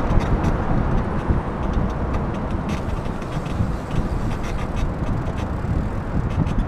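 Wind buffeting the microphone of a handlebar-mounted camera on a moving bicycle: a steady low rumble, with tyres rolling on a concrete path and a few faint ticks.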